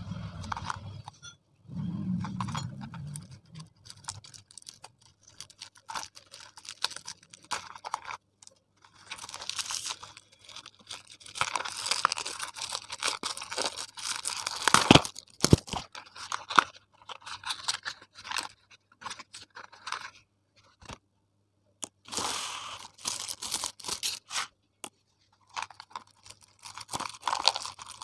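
Shiny metallic gift wrap being crinkled and torn off small gift boxes by hand, in irregular bursts of crackling and tearing with short pauses between.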